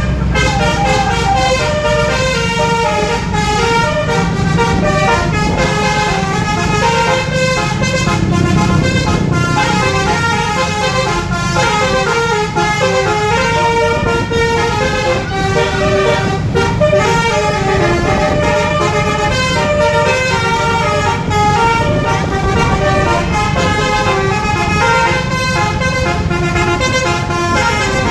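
Indonesian bus 'telolet' basuri horn, a multi-trumpet musical air horn, playing a tune without a break, its tones stepping up and down. A strong low rumble runs underneath.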